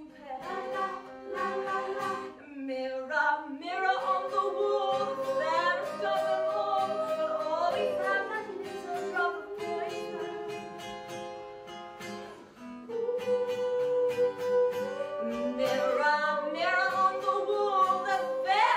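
A singer holding long notes that glide up and down, over a plucked acoustic guitar.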